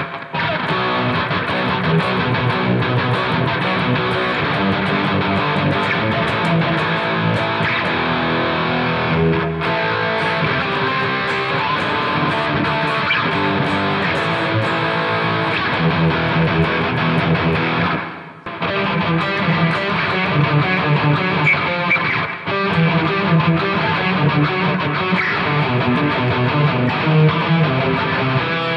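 Electric guitar played with high-gain distortion through a combo amp's generic stock speaker, sounding continuously apart from a brief break about eighteen seconds in.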